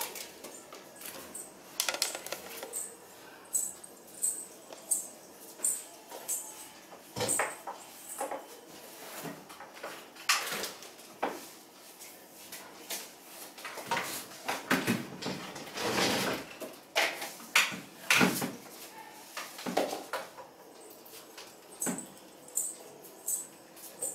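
Irregular handling noises: scattered clicks, knocks and rustling as the mixer grinder's motor base and power cord are moved and plugged in. No motor is running.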